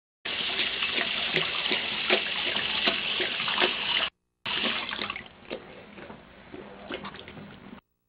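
Bathroom sink faucet running into the basin, with small splashes and clicks as a dog drinks from the stream. It cuts out briefly about four seconds in, then goes on more quietly.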